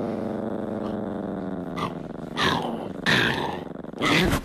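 Small chihuahua growling: one long continuous growl, then a few short, louder growling bursts in the second half.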